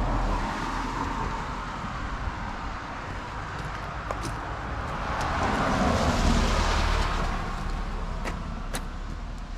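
Road traffic noise: a motor vehicle passing by, building to its loudest about six seconds in and then fading, over a steady rumble, with a few light clicks.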